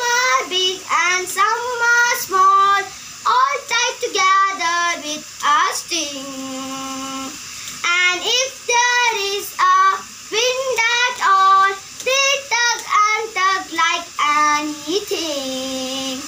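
A child singing a poem in a high, sing-song voice, with a long held note about six seconds in and another near the end.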